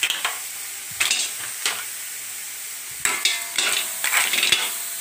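Crabs and mussels sizzling in a hot wok while being stirred. A steady hiss of frying runs under the scrape and clatter of the shells against the pan: a few separate knocks, then a busier run of clattering about three seconds in.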